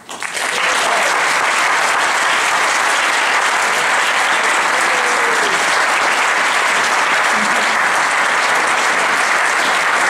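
Audience applauding: the clapping breaks out at once, swells to full strength within the first half second, then holds steady.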